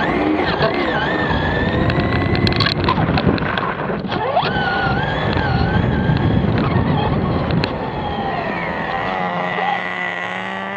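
Radio-controlled car being driven, its motor whine wavering up and down in pitch with the noise of the running car. There are a few sharp knocks about two and a half to three seconds in. Near the end it settles into a steadier whine that slowly rises in pitch.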